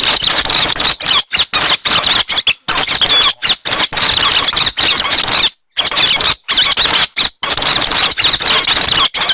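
Lure recording of the 'héc xoan' bird's song: a fast, busy run of high chattering and twittering notes. It is broken every half second to second or so by brief dead-silent cuts, as in a looped edit.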